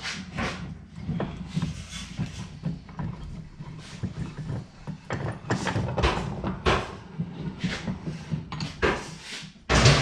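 Metal parts of a bench vise being handled and refitted: a run of irregular clanks, knocks and scrapes, with the loudest knock just before the end.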